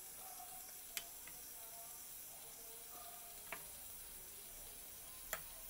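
Soft wet stirring of thick curd with chopped tomato, a plastic spoon working it in a bowl, broken by three light clicks about one, three and a half and five seconds in.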